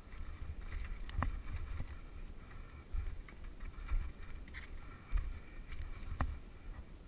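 Mountain bike riding down a rooty forest trail: a low rumble of wind buffeting the camera microphone, with the bike rattling and sharp knocks as it hits bumps and roots, the loudest about a second in and about six seconds in.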